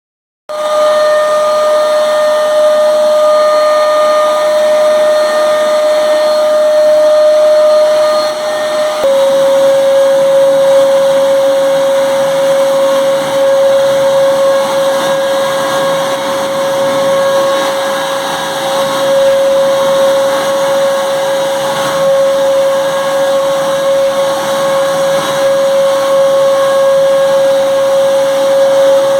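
Eureka Forbes vacuum cleaner motor running with a steady high whine over a rushing of air. It starts abruptly, and about nine seconds in its pitch steps down slightly and stays lower.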